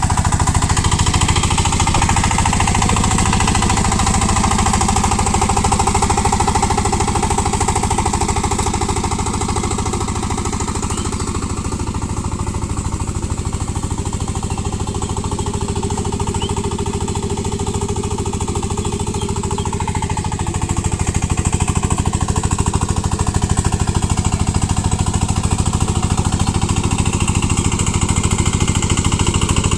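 VST power tiller's single-cylinder diesel engine running with a rapid, steady chugging while it puddles a muddy paddy field. The sound eases off slightly through the middle and grows louder again a little after twenty seconds.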